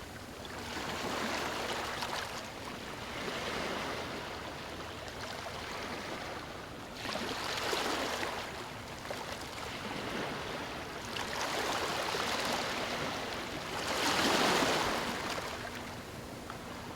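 Ocean waves breaking and washing up the shore in slow surges every few seconds, one rising sharply about seven seconds in and the loudest near the end.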